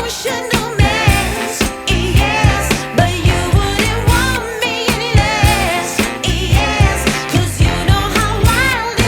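Background pop music with a female singing voice over a steady drum beat.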